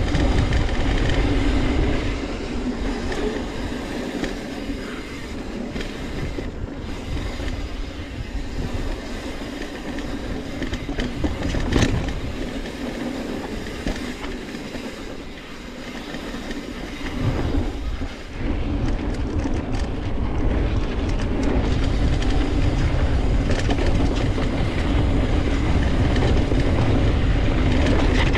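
A Polygon Siskiu N7 full-suspension mountain bike rolling fast down dirt singletrack: knobby tyres running on the dirt and the bike's chain and frame rattling over bumps, with heavy wind rumble on the microphone. The wind rumble eases for a long stretch in the middle and comes back strong about two-thirds of the way through.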